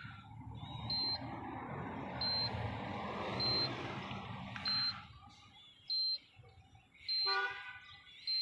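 A short, high electronic beep repeating about once every 1.2 seconds, over a rumbling vehicle noise that fades out about five seconds in. A brief horn-like tone sounds near the end.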